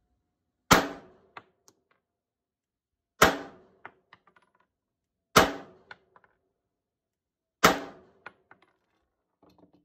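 Four single shots from a CZ Shadow 2 9mm pistol, fired slowly about two to two and a half seconds apart, each followed by a couple of small metallic clinks from spent brass cases landing.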